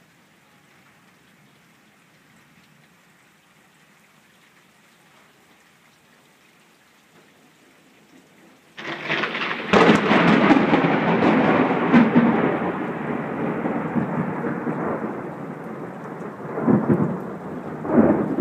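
Steady light rain, then a sudden loud crack of thunder about nine seconds in that rolls on and slowly fades, swelling again twice near the end, with the rain going on underneath.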